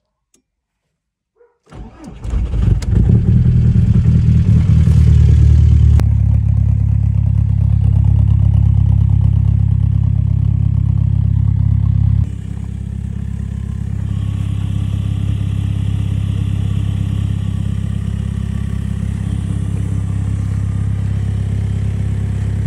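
Volkswagen Golf 4's 1.9 TDI four-cylinder turbodiesel starting from cold at about −10 °C: it catches shortly after two seconds in and settles into steady running. About twelve seconds in it is heard from outside, behind the car by the exhaust, idling a little quieter.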